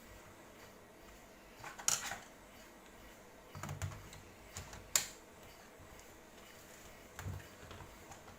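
Laptop keyboard keys pressed a few at a time, in scattered clicks and taps with pauses between them; the sharpest is about five seconds in.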